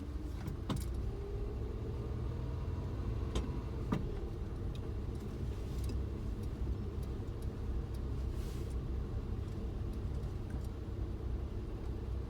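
Suzuki Jimny on the move: steady low engine and road rumble, with a few light clicks and rattles.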